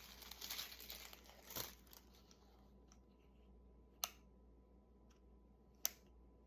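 Wrapping paper crinkling as it is handled for about two seconds, then two sharp clicks about two seconds apart.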